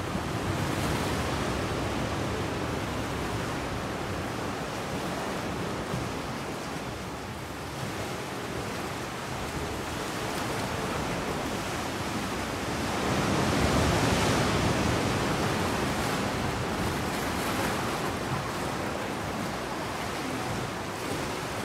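Sea water washing and sloshing inside a sea cave, with one louder surge swelling about thirteen seconds in.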